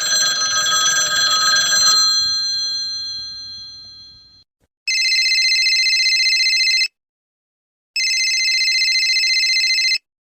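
A ringing chime of several tones that starts sharply and dies away over about four seconds. Then a telephone rings twice, each ring a rapid trill of about two seconds.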